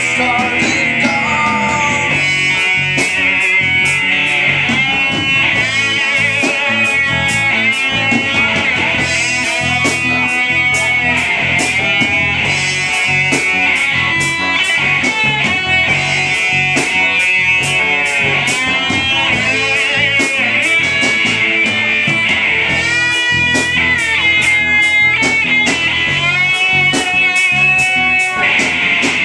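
Live rock band playing an instrumental passage: an electric guitar lead with bent, wavering notes over bass guitar and drums.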